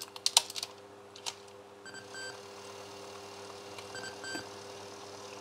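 Sony WM-FX822 Walkman's cassette transport: a quick run of mechanism clicks as playback stops and the auto music sensor search starts, then the motor hums steadily as the tape rewinds, with two pairs of short beeps.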